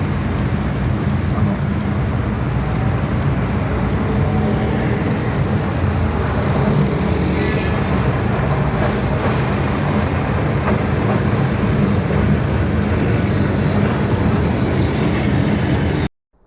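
ATM Class 1500 'Peter Witt' tram running: a loud, steady rumble with faint ticks at regular spacing, cutting off suddenly near the end.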